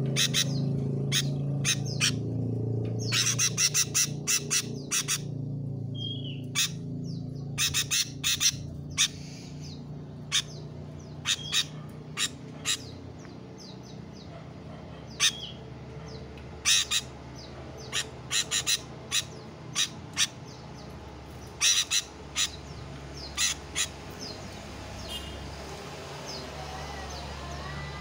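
Sooty-headed bulbul (kutilang) giving short, sharp calls in quick clusters of two to five throughout, with a few brief whistled notes between them.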